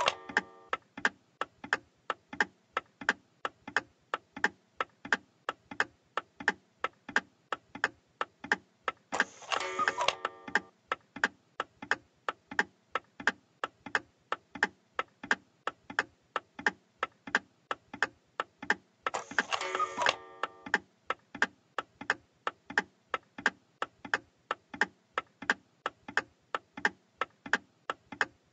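Animated grandfather cuckoo clock's sound effects: steady, even ticking, broken about every ten seconds by a short cuckoo call.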